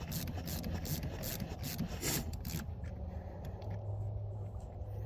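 A wrench tightening a nut on a ground cable connection: a quick run of short rasping clicks, about four a second, that stops about two and a half seconds in.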